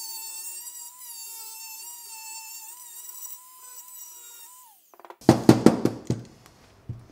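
Dremel rotary tool with a sanding wheel running at high speed, grinding down plastic lips inside a camera body: a steady high whine that wavers slightly under load, then drops in pitch and stops. A quick run of loud knocks follows, with one more near the end.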